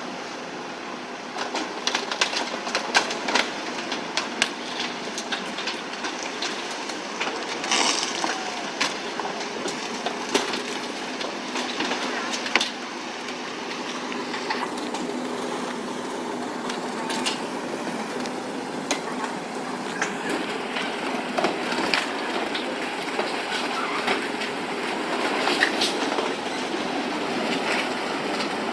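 Moored boats and pontoons cracking and crunching as a cargo ship's bow grinds through them: irregular snaps and bangs over a steady rush of churned water, with a low steady hum underneath.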